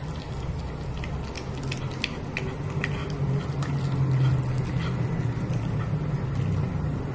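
A cat chewing a cooked shrimp, with many small wet clicks and smacks of its jaws. A low steady hum runs underneath and swells about halfway through.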